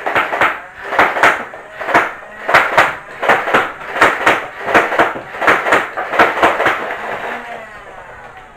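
Nerf Elite 2.0 Turbine CS-18, a motorized flywheel blaster, firing standard Elite foam darts in short bursts: a rapid string of sharp shots, about three a second, for some seven seconds, then stopping.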